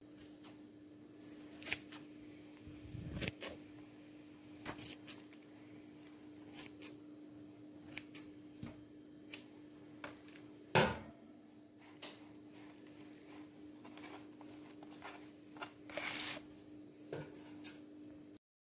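Scissors snipping through freshly grown grass blades on a grass head, an irregular run of sharp snips and clicks, the loudest about 11 seconds in. A faint steady hum runs underneath.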